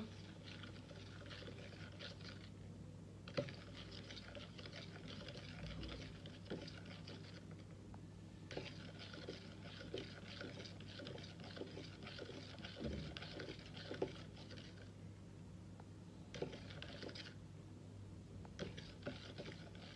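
A long-handled spoon stirring a thick mix of herb powders and oil in a plastic measuring cup: soft scraping in spells of a few seconds, with light clicks of the spoon against the cup. A faint steady low hum runs underneath.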